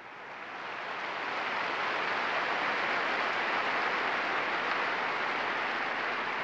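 Large crowd applauding, the clapping swelling up over the first couple of seconds and then holding steady.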